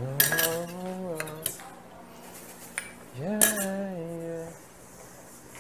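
Dishes, cups and cutlery clinking and knocking at a kitchen sink, with two held pitched tones about a second long, one right at the start and one a little past three seconds in.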